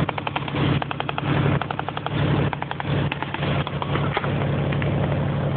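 Military vehicle engine running steadily, overlaid with quick bursts of sharp cracks from automatic gunfire, thickest in the first few seconds.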